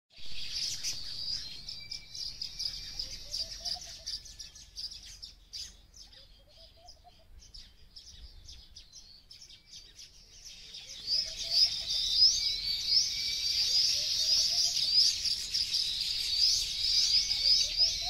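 Baya weaver birds chattering: a dense stream of quick, high chirps that thins out in the middle and grows loud again about two-thirds of the way through.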